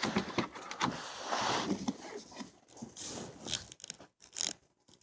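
Irregular scraping and clicking of hand tools working bolts and plastic clips loose on a car's front end, dying away near the end.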